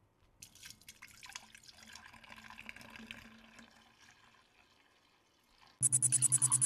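Juice pouring from a bottle into a glass jug, a soft splashing fill for about three seconds. Near the end a much louder rapid pulsing sound starts, about ten pulses a second.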